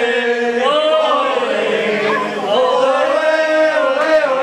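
A group of people singing a chant together, holding long notes that rise and fall.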